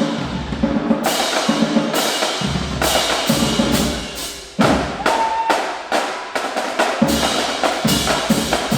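Marching band drumline playing a percussion break: rapid drum strikes with cymbal crashes and bass drum hits in a driving rhythm. A sudden loud hit lands about four and a half seconds in.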